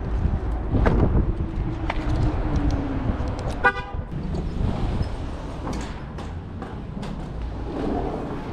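A short car-horn beep about three and a half seconds in, after a vehicle passes, with low rumble of wind and traffic throughout.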